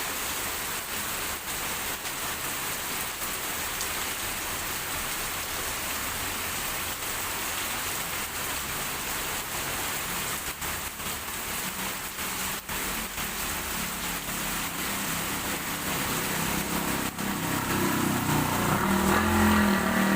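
Heavy rain falling steadily on a road. About halfway through, a motor vehicle's engine comes in low and grows louder as it approaches, becoming the loudest sound near the end.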